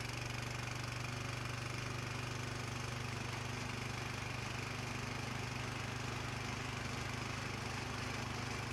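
Small engine of a Craftsman mini riding mower, just pull-started, running steadily and smoothly at an even, unchanging speed, without a throttle control.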